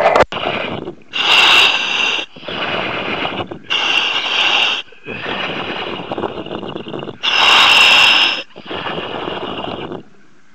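A surface-supplied diver's breathing heard over the helmet microphone: three full breath cycles, each a loud hissing breath through the helmet's breathing gear followed by a softer rushing breath, with a short pause near the end.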